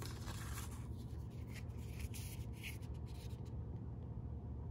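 Paper and thin card rustling and sliding as printed leaflets and a card document folder are handled, in a few short, soft scuffs over a faint steady low hum.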